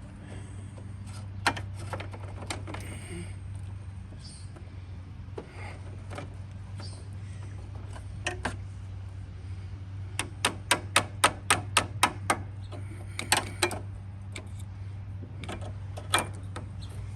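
A screwdriver clicking and knocking against the ignition switch and its retaining tabs while prying it loose. About ten seconds in comes a quick run of around a dozen rapid clicks, over a steady low hum.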